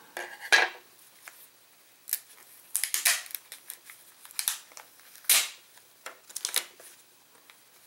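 Handling noise from a stripped DJI Phantom 4 battery pack and its plastic casing parts being turned over and moved: about a dozen irregular sharp clicks, scrapes and crinkles, loudest about half a second in and about five seconds in.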